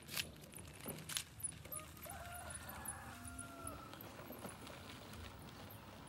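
Faint, distant chicken calling for about two seconds, starting a couple of seconds in, after a few sharp clicks near the start.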